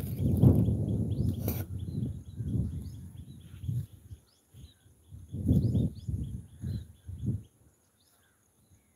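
Gusts of low rumbling noise, typical of wind buffeting a phone microphone, which die away near the end. Small birds chirp repeatedly over them.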